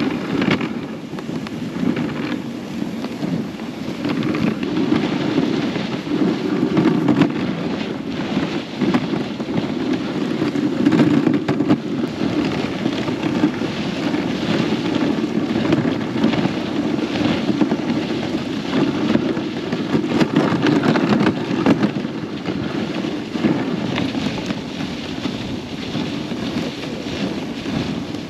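Dog sled runners sliding over a packed snow trail: a steady rumbling hiss with small crackles, picked up by a camera riding on the sled, with some wind on the microphone.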